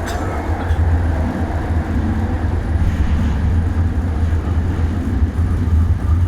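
LRT train running on its track, heard from inside the car: a steady low rumble with a noisy hiss above it, a click at the start and then a slight rise in loudness.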